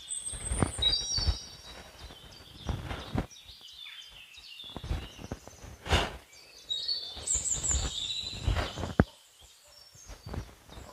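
Forest birds calling with high whistled phrases, near the start and again about seven seconds in, among several brief rustles and thuds of feet shifting on dry leaf litter.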